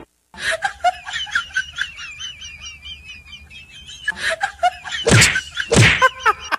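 High, warbling bird-like chirps over light clicking, then two loud sweeping noises that fall in pitch, about five and six seconds in.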